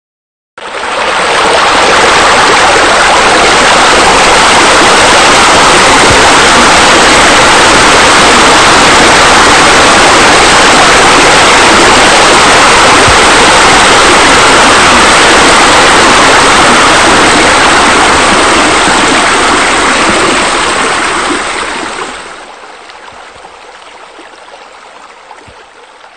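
Loud, steady rush of falling, splashing water, as from a pool's waterfall spillways. It starts suddenly about half a second in and fades to a much quieter level a few seconds before the end.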